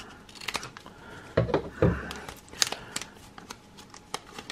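Scissors snipping across the top of a foil trading-card pack, with the wrapper crinkling as it is handled and then pulled open. Two dull thumps come about one and a half and two seconds in, and a sharp snip comes shortly after.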